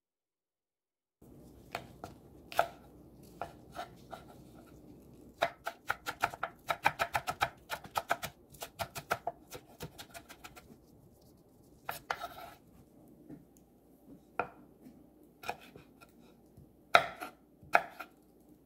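Chef's knife chopping green onions and then red bell pepper on a bamboo cutting board, starting about a second in. A few scattered cuts lead into a fast run of chops, several a second, in the middle, followed by slower single cuts.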